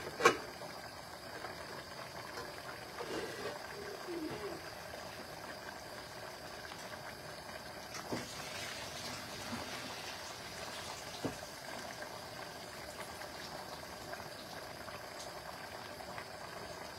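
Steady low hiss and trickle of water, with a couple of faint clicks about 8 and 11 seconds in.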